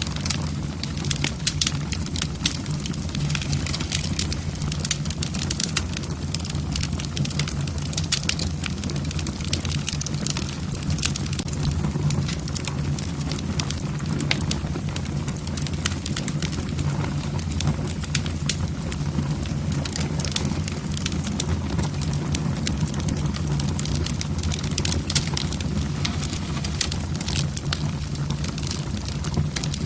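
Wood fire burning in a fireplace, logs crackling with many small sharp pops over a steady low rumble of the flames.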